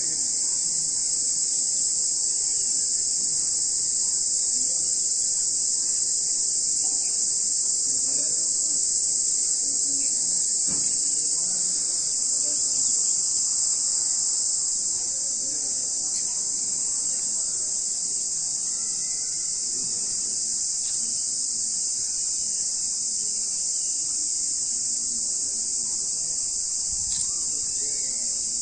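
Steady, high-pitched chorus of insects sounding without a break.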